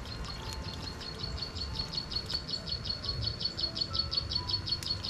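An insect chirping in a fast, even pulse, about eight high chirps a second, over a low rumble.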